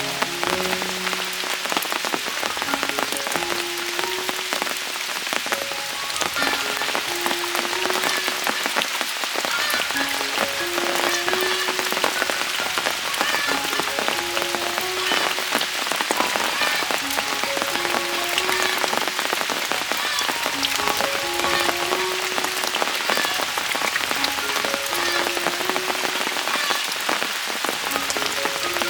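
Rain falling steadily on surfaces. A soft background melody repeats every few seconds underneath it.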